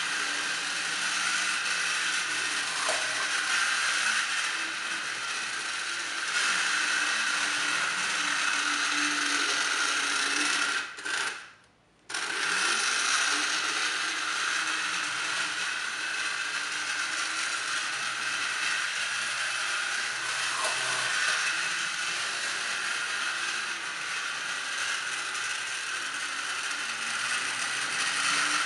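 Lionel #3360 Burro Crane's small electric motor and gear train whirring steadily with a ratcheting gear chatter. It cuts out for about a second a little before the halfway point, then starts up again.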